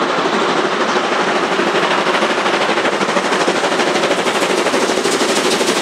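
Steam locomotive running under power, its exhaust beats coming in a fast, even, continuous stream.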